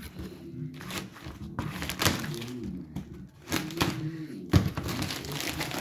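Plastic stretch-wrap and cardboard packaging being pulled and handled: irregular rustling with scattered sharp knocks and cracks, the loudest about four and a half seconds in.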